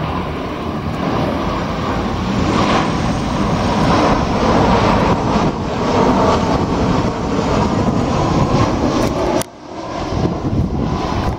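Arriving passenger airliner passing close, its engines and rushing air loud and steady, swelling a couple of seconds in. The sound cuts off abruptly near the end, giving way to quieter noise.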